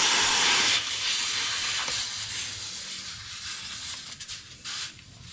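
Air hissing out of a motorcycle tyre's open valve stem, core removed, as the valve core is put back in with a valve tool. The loud hiss drops sharply about a second in, then fades to a faint hiss with a few light clicks near the end.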